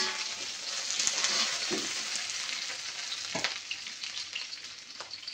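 Ginger frying in hot oil in a pan, a steady sizzle, stirred now and then; the sizzle is loudest at first and dies down towards the end, with a couple of short sharp scrapes or knocks about halfway through.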